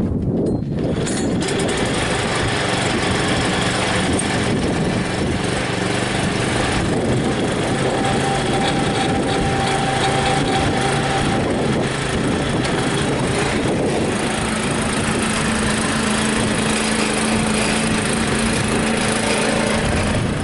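Newly fitted Predator 173cc single-cylinder overhead-valve engine running steadily on a John Deere 56 riding mower, just after a first start that went smoothly. Its note shifts slightly about two-thirds of the way through.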